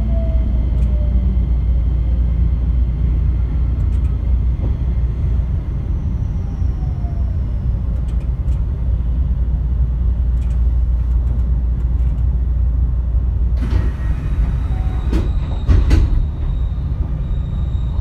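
JR West 225 series electric train running, a steady low rumble of wheels on rail, with the whine of its Toyo IGBT inverter falling in pitch at the start as the train slows. A few sharp clacks come about three-quarters of the way through, the loudest about two seconds before the end.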